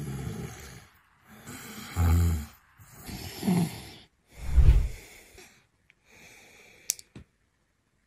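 A man snoring through an open mouth while asleep on his back: a run of rough snores about one a second, the loudest deep and heavy, growing fainter near the end with two sharp clicks. The mouth-breathing snore is one the doctor takes as a probable sign of a nasal obstruction.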